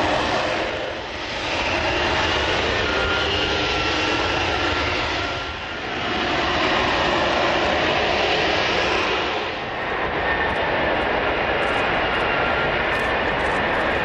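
F-35B Lightning II hovering on its jet engine and lift fan: a loud, steady roar with a high whine, dipping briefly about every four seconds.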